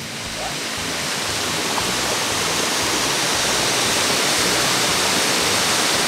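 Cascading waterfall tumbling down a rock face: a steady, full rushing of falling water, swelling in over the first second or so.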